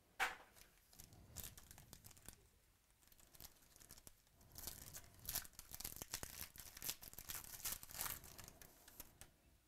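Foil wrapper of a 2017 Panini XR Football card pack being torn open and crinkled by hand: faint scattered rips and rustles, busiest from about four and a half to eight and a half seconds in.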